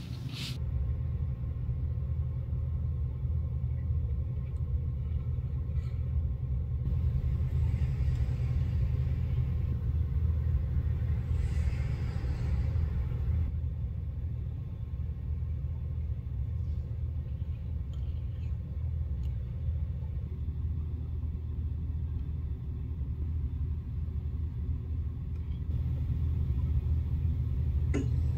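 A steady low rumble with, from about 7 to 13 seconds in, a soft scraping hiss as an edge-paint applicator is drawn along a leather handbag's cut edge, and a few faint ticks.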